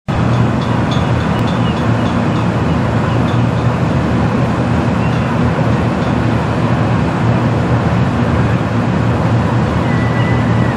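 Steady, loud low rumbling drone with a hum in it, mixed with wind noise on the microphone; a few faint high chirps sound over it.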